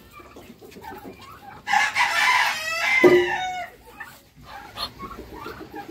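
A rooster crowing once, about two seconds in and lasting about two seconds, its call falling away at the end.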